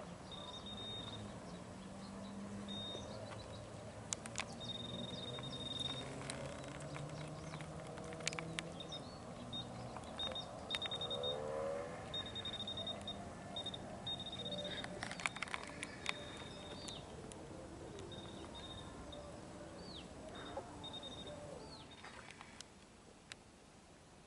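Metal detector pinpointer sounding a high, steady tone that switches on and off irregularly as it is passed over metal in the ground, with scattered sharp clicks.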